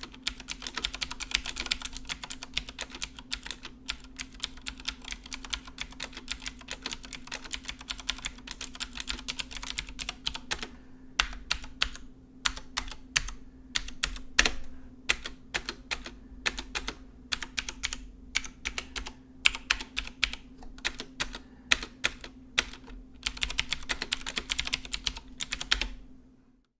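Cooler Master mechanical keyboard with clicky blue switches being typed on. Fast, continuous keystrokes slow to separate presses about midway, with one louder stroke, then speed up again before stopping near the end.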